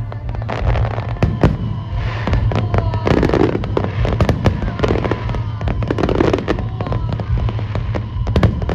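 Aerial fireworks going off in rapid succession: many sharp bangs and crackles, with whistling shells gliding in pitch, over a steady low hum.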